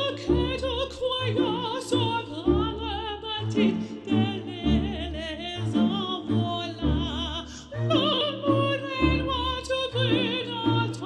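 Intro music: a singer with strong vibrato over a pulsing bass beat.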